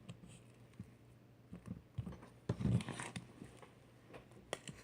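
Thick slime being worked by hand, with soft, irregular squishes and small clicks and a louder cluster of squelching about halfway through.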